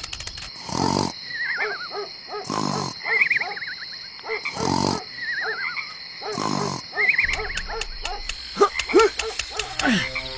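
Cartoon snoring sound effect, repeating about every two seconds: a rasping snore, then a wavering whistle on the out-breath. A few quick chirps and pitch glides come near the end.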